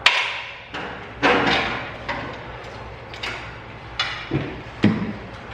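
A series of sharp knocks and clicks, about eight at irregular intervals, each fading quickly: parts and tools being handled while working on car light housings and their wiring.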